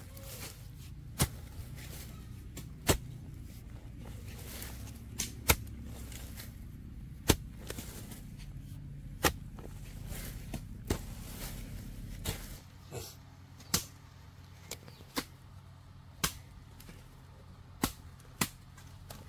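A series of sharp knocks or chopping strikes, roughly one every one and a half to two seconds, with a low steady hum underneath that cuts off about two-thirds of the way through.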